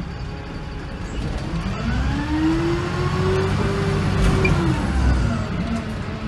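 VDL SB200 bus engine heard from inside the cabin, revving up as the bus accelerates. The note holds high for about a second, then drops back near the end and runs on steadily.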